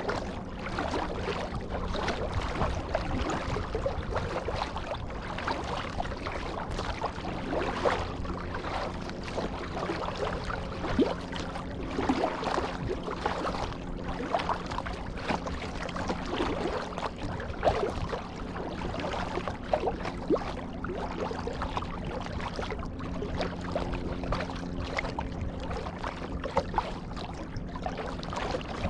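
Kayak paddling: paddle blades dipping and splashing in the water at an irregular pace, with drips and water noise over a steady low hum.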